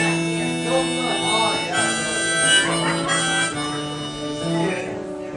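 Harmonica playing an instrumental break between verses over strummed acoustic guitar, with sustained chords that shift every half second or so. The harmonica stops near the end, leaving the guitar strumming.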